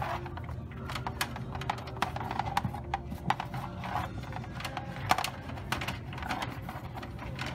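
Black power and network cable being handled and pulled through a gap under a wooden frame, with irregular clicks and light scraping as it drags against the sheet-metal channel and wood.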